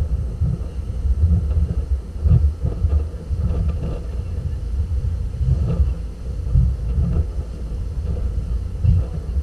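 Wind gusting on the microphone over the engine and churning wake of a passenger boat under way: a loud, uneven low noise.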